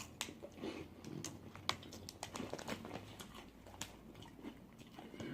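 A person chewing crunchy chips close to the microphone, with irregular sharp crunches and crackles as they break between the teeth.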